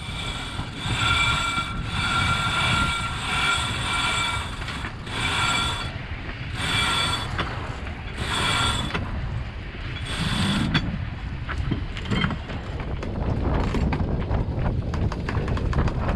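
Sailboat staysail halyard squealing through its block in repeated hand-hauled pulls about a second long as the sail is hoisted, then a cabin-top winch clicking rapidly as the halyard is tensioned. Wind and water rush underneath.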